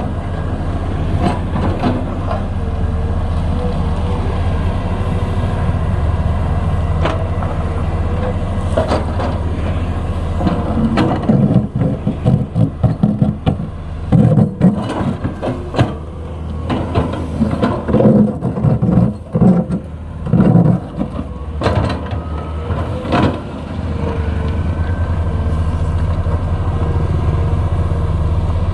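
Komatsu PC210LC hydraulic excavator's diesel engine running steadily under work. From about ten seconds in, the bucket gives a run of loud, irregular knocks and scrapes, which settle back to the plain engine sound near the end.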